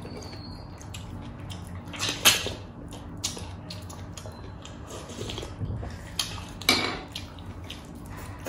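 Close-miked mukbang eating sounds: wet chewing, lip smacks and sucking on a pork hock bone from sinigang soup, with a spoon clinking against a bowl. Two louder wet smacks stand out, about two seconds in and again about three-quarters of the way through.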